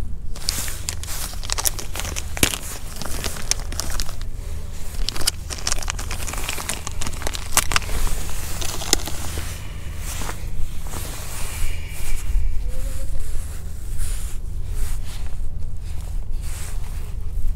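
A plastic soft-bait packet crinkling and crackling as it is handled and torn open, over a steady low wind rumble on the microphone.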